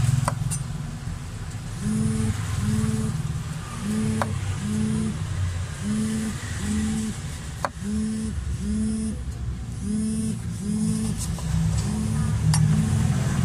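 A cleaver slices through a lime and knocks on the cutting board a few times, with sharp clicks about four seconds apart. Under it runs a louder steady low rumble with a regular pulsing hum.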